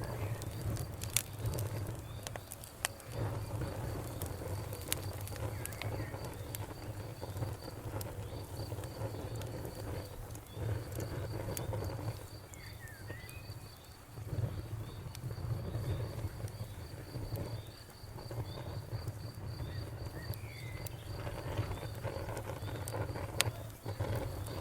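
Outdoor wood fire crackling, with scattered sharp pops over a steady low rumble. Behind it an insect chirps in a fast, even rhythm, and a few short higher chirps come and go.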